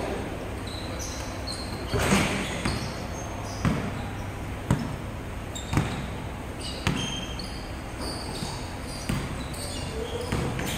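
Basketball bouncing on the court floor in a steady dribble, about one bounce a second.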